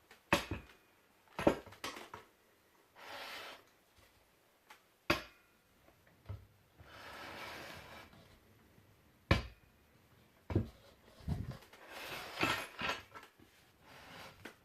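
Handling noises: a run of sharp knocks and clicks of hard objects set down and moved, with three short stretches of sliding or rustling between them.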